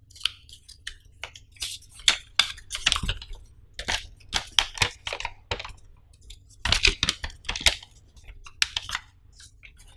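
Folded paper user manual being unfolded and opened out by hand: irregular crackling and rustling of the paper sheet, loudest about two to three seconds in and again around seven seconds in.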